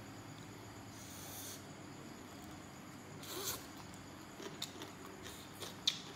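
A person chewing a mouthful of som tam (green papaya salad) close to the microphone, with two short rasping sounds and a scatter of small mouth clicks in the second half.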